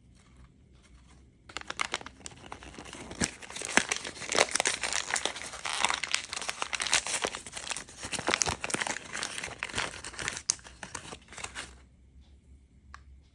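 Thin printed paper wrapper crinkling and tearing as it is crumpled and pulled open by hand to free a small toy figurine. The crackling starts suddenly about one and a half seconds in and stops a little before the end.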